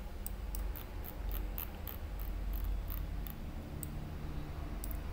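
Computer mouse clicking: a run of small, sharp, irregular clicks, about three a second, thinning out after about three seconds, over a low steady hum.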